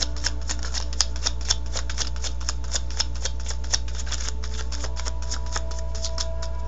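Tarot cards being shuffled and handled: quick, even card clicks about four to five a second, over a steady low hum.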